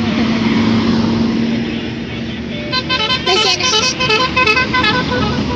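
Indonesian 'telolet' multi-tone bus horn playing a rapid melody of short, stepped notes for about two and a half seconds, starting about halfway through, over steady vehicle noise.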